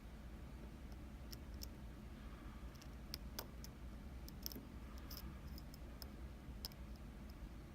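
Faint, irregular light metallic clicks of a dimple pick working the pins of an Anzbe HS7 dimple lock, over a low steady hum.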